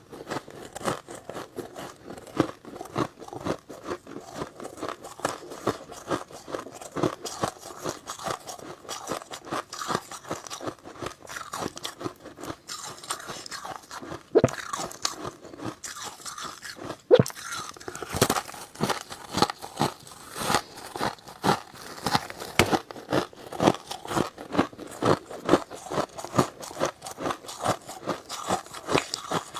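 Close-miked biting and chewing of powdery freezer frost: a dense run of sharp, crisp crunches, one louder snap a little past the middle.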